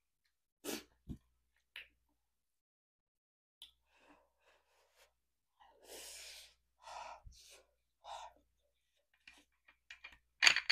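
A person eating: scattered short mouth sounds, such as lip smacks, a slurp from the chopsticks and sharp breaths, between quiet gaps. The loudest comes near the end.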